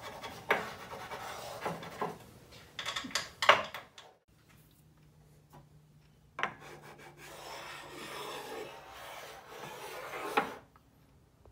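A wooden block rubbed and slid across a router table's insert plate and the tabletop around it, checking that the plate sits level and the block doesn't catch at the edges. Scraping strokes with a few knocks, then a pause of about two seconds, then a longer steady stretch of rubbing that ends with a knock near the end.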